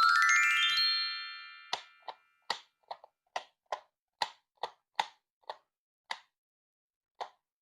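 A bright chime sweeping upward in pitch, ringing and fading over about a second and a half. Then a run of about a dozen short water-drop plops, two or three a second, spacing out near the end.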